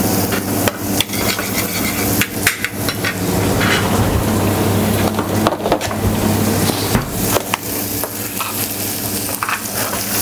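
Rock samphire and shallots stewing in butter in a stainless-steel saucepan with a soft sizzle, a metal spoon stirring and clicking against the pan now and then. A steady low hum runs underneath.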